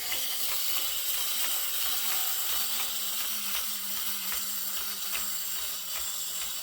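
Wind-up toy dinosaur walking, its clockwork spring motor whirring with a steady hiss and regular faint clicking.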